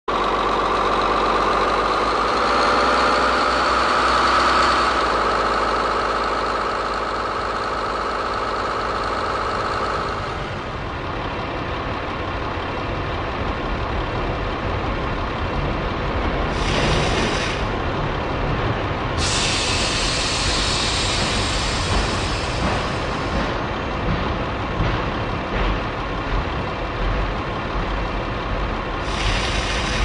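A 1950s–60s German diesel engine running. A high whine climbs over the first few seconds and holds, then drops away about ten seconds in, leaving a lower, rougher run. Three short bursts of hissing air come in the second half, the longest about three seconds.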